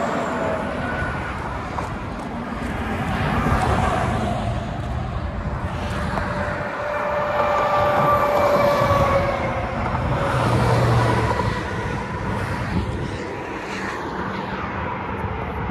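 Road traffic going by on a highway, several vehicles passing in turn, each swelling louder and then falling away with a slight drop in pitch, over a constant rumble.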